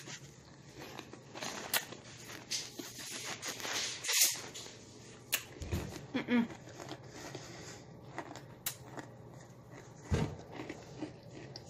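Phone being handled close to the microphone: scattered clicks, scrapes and rustling of fabric brushing against it, the loudest burst of rustling about four seconds in and another about ten seconds in.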